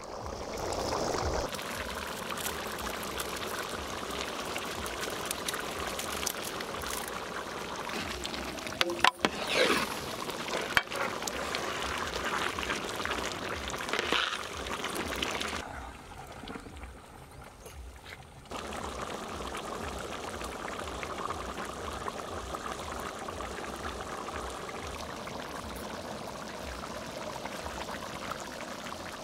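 A big pot of thick tamarind fish gravy boiling hard over a wood fire, with a steady bubbling and spluttering. It drops away briefly just past the middle, then comes back.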